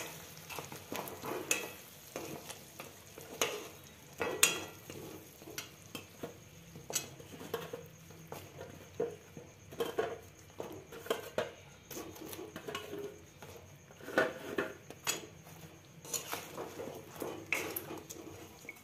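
Slotted metal spoon stirring and knocking against a metal kadhai, turning fried mathri through thick sugar syrup: irregular scrapes and clinks, a few every couple of seconds.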